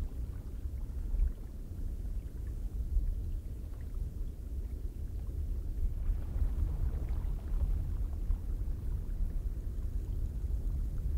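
Cold wind blowing, a deep rushing noise that swells and eases slightly.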